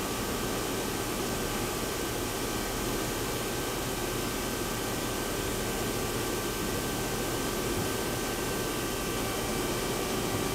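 Nakamura-Tome WTS-150 CNC turning center running under power: a steady hum and hiss with a few faint steady tones through it.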